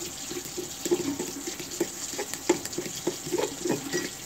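A fork stirring a thick, gravy-like sauce of brown sugar and honey in a mug, with wet sloshing and the fork clicking against the sides in a quick, steady rhythm of about three to four strokes a second.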